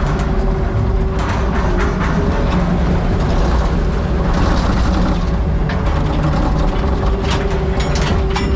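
Heavy diesel engine running steadily under a constant hum, with irregular metallic clanks and rattles from the machinery.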